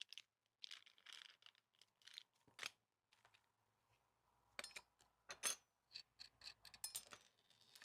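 Faint clicks and light scraping of small parts being handled: a plastic reflector, washer and bolt being fitted, with scattered clicks at first and a closer run of clicks in the second half.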